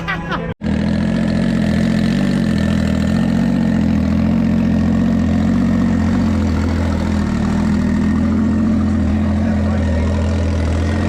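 Turbocharged Sea-Doo RXP-X 300 jet ski engine idling steadily, loud and unchanging, starting just after a sudden break about half a second in.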